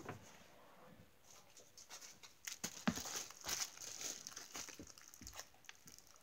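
Crinkly rustling with scattered small crackles as squishy toys are rummaged through by hand, starting about a second in.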